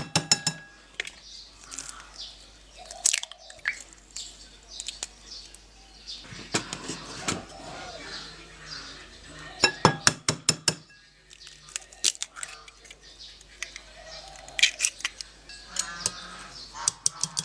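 Dishes and cutlery clinking, with sharp clicks in quick clusters just after the start, around ten seconds in and near the end.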